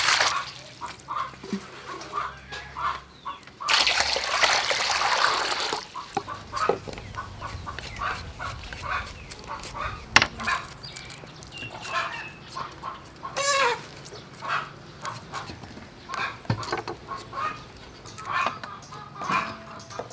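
Water pouring into a stainless steel bowl, in two short spells near the start, then chickens clucking on and off, with a few sharp knocks.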